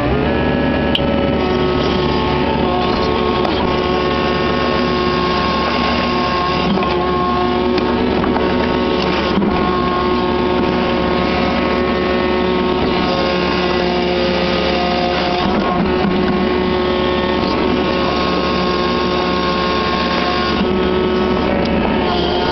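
Kubota KX61-3 mini excavator's three-cylinder diesel engine running at working revs, with the hydraulics whining under load as the bucket grades the soil. The whine changes pitch every few seconds as the controls are worked.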